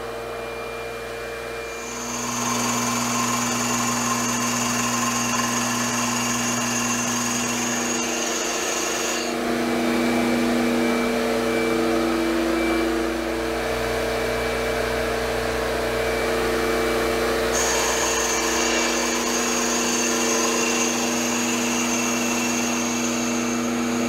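CNC wood lathe cutting a spinning wooden spindle in roughing passes, with a shop vacuum running at the cutter for chip collection. The cutting noise gets louder about two seconds in, over a steady machine hum, and a high whine drops out for several seconds in the middle.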